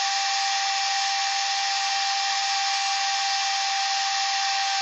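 Cooling fan of an electronic dummy load running hard, a steady whirr with a constant whine, while the load draws about 2 amps from the bench supply.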